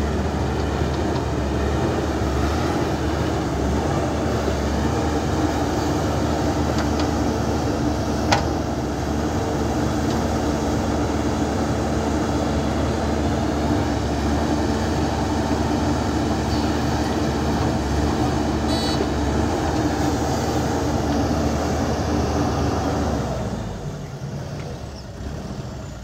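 JCB 3DX backhoe loader's diesel engine running steadily under load while the backhoe digs soil, with a single sharp knock about eight seconds in. The sound falls away near the end.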